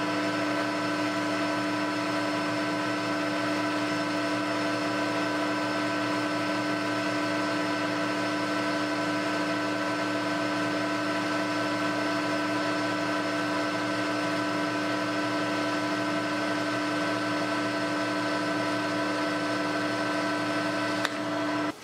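Metal lathe running at a steady speed with a constant gear whine, taking a light finishing cut on a 4140 steel shaft. The sound cuts off suddenly near the end.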